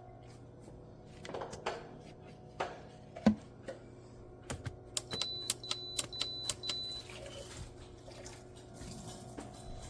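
Clicks and knocks of a Tastyle single-serve coffee maker being handled, then a quick run of about five short high beeps a little past the middle, as its control buttons are pressed. A faint steady hum runs underneath.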